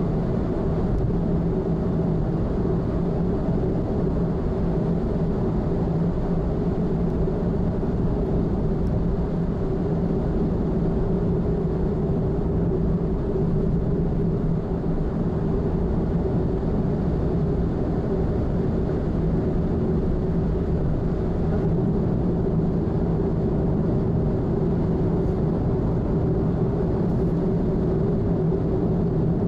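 Steady drone of a car cruising at expressway speed, heard from inside the vehicle: tyre and road noise with an even engine hum, unchanging throughout.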